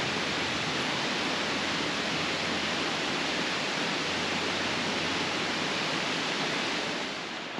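Steady rushing of running water from a stream or small waterfall, with no separate splashes or knocks; it drops off a little before the end.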